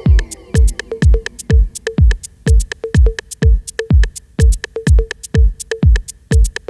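Early-1990s electronic dance track: a drum-machine kick drum beats steadily about twice a second, each kick falling in pitch, with short crisp clicks between the beats. Falling synth sweeps fade out in the first half-second.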